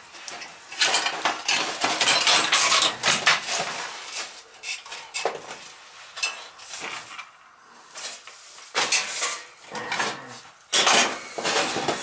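Metal clinking and clattering in irregular clusters of sharp clicks as gloved hands work a sheet-metal boiler aquastat control box, its housing, screws and wiring; it goes quieter for a couple of seconds past the middle.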